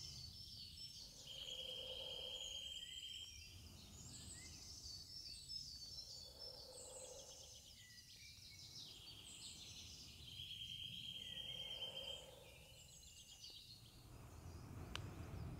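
Faint woodland birdsong: many small birds chirping and twittering, with a steady high trill of about two seconds heard twice.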